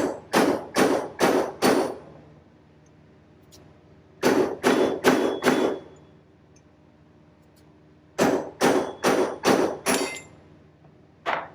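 A hammer drives a steel punch against a bearing race inside a baler wheel hub, knocking the race out. There are three quick runs of about five ringing metallic blows each, then a single blow near the end.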